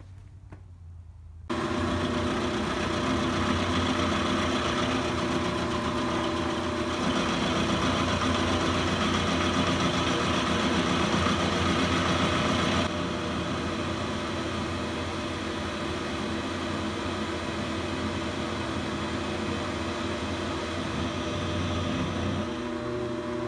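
Milling machine running a roughing end mill through a block of metal bar stock: a loud, steady machining noise with several steady tones. It begins abruptly about a second and a half in and turns somewhat quieter about halfway through.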